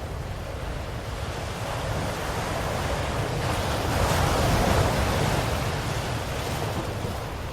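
Ocean waves breaking on the shore: a steady surf wash with one wave swelling in about three seconds in, peaking and then drawing back.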